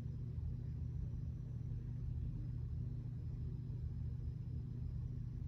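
Steady low hum of a ceiling fan running.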